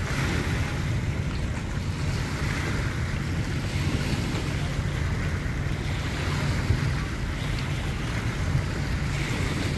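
Steady wind buffeting the microphone over choppy lake water, with a low, even rumble and the wash of small waves.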